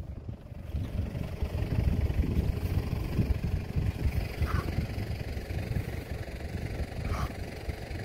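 Wind buffeting the microphone in an open pasture: a low, irregular rumble that swells and dips.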